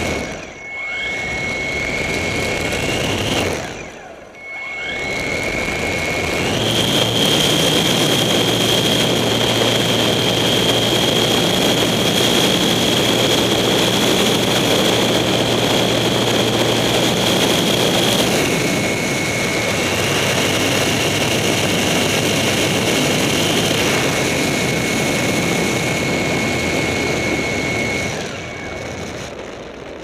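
Light ski-plane's engine and propeller running: it dips and picks up twice, then goes up to full power for the takeoff run about six seconds in and holds there with a steady high whine. After about eighteen seconds it is throttled back for the climb, and eases off again near the end.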